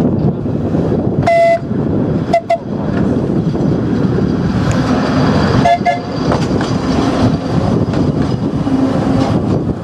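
Electric tram running along its track, heard from its open top deck as a steady rumbling running noise. Three short horn toots sound about a second in, at two and a half seconds, and near six seconds.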